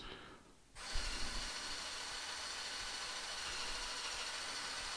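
Small electric motors of a remote-controlled brick-built toy crane running steadily with a thin whine. The sound drops out briefly, then starts again with a click just under a second in.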